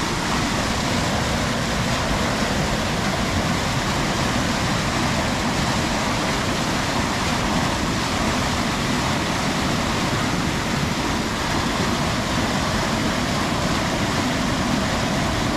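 Fast-flowing river water rushing over rocks in a small cascade: a steady, even rush with no breaks.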